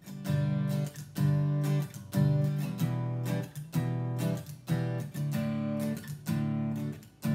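Acoustic guitar, a small mahogany-bodied one, strumming chords in a steady rhythm as the song's intro.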